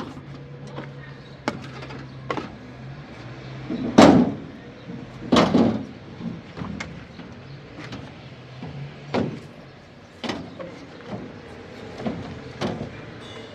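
A series of knocks and thuds, the two loudest about four and five and a half seconds in, over a low steady hum that stops about nine seconds in.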